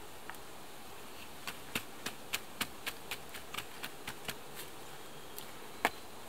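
A short wooden stick jabbed repeatedly into dry, crumbly dirt at the base of an upright pole, about three or four sharp ticks a second for roughly three seconds, then one louder knock near the end.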